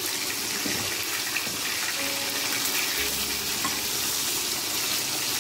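Pieces of katla fish sizzling steadily as they fry in hot mustard oil in a steel kadai.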